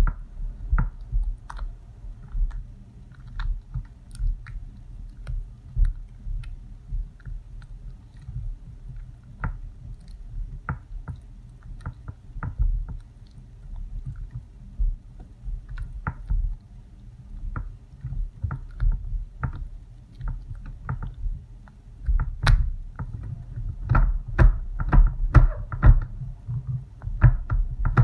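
Spatula stirring thick hot-process soap batter in a crock pot, just thinned with coconut cream: irregular wet squelches and knocks of the spatula against the pot, busier over the last several seconds.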